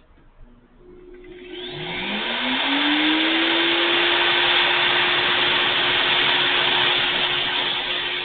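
Electric motor of a VIVOSUN 15-amp wood chipper-shredder starting up: its whine rises in pitch over about a second, then it runs steadily at full speed with a loud whirring hiss.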